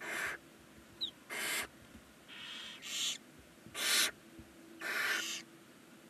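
Barn owl nestlings giving harsh, breathy hissing calls, the food-begging 'snoring' of young barn owls, repeated about six times in short bursts of under half a second each.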